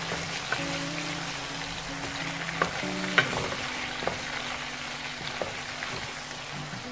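Sliced red onions sizzling in hot oil in a nonstick pan, stirred with a wooden spatula that taps and scrapes against the pan a few times, most sharply about three seconds in.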